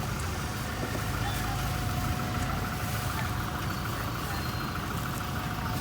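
A motor vehicle engine running steadily with street traffic noise, with faint voices in the background.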